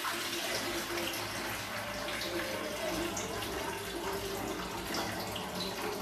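Water pouring and splashing steadily in a kitchen sink as parboiled black-eyed beans are drained and rinsed.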